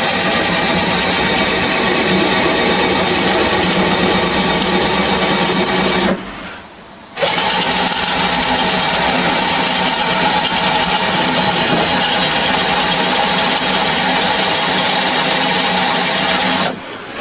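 Power drill running steadily under load, drilling through the van's steel framework, which is two thicknesses of steel here. It stops about six seconds in, starts again a second later, and cuts out near the end.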